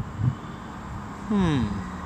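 Steady low diesel hum of a Class 158 diesel multiple unit coming through the station. A short falling vocal sound rises over it about one and a half seconds in.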